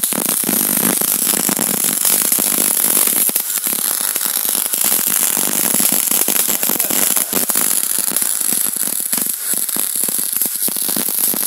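Arc welding on steel suspension parts: a continuous dense crackle of sharp pops over a steady high hiss.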